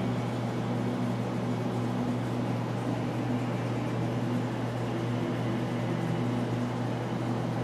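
Steady low background hum with an even hiss over it, unchanging throughout.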